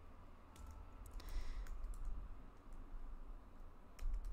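Computer keyboard keys clicking in a few scattered keystrokes as a line of code is typed.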